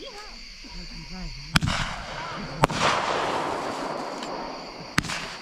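Fireworks bursting in the sky: three sharp bangs, about a second and a half in, a second later, and near the end, the first two each trailing off in a long fading hiss.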